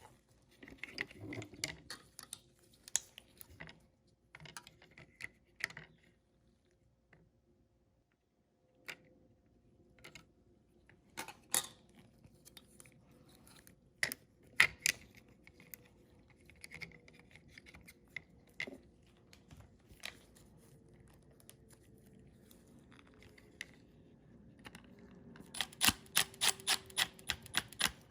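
Scattered light clicks and knocks of small plastic parts and hand tools being handled, as the refrigerator's ice-dispenser infrared sensors are refitted. Near the end there is a quick run of ticks, about five a second.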